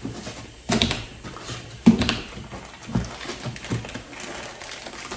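Parts and packaging being handled while a coilover kit is unpacked: a few sudden knocks and rustles, the loudest about two seconds in.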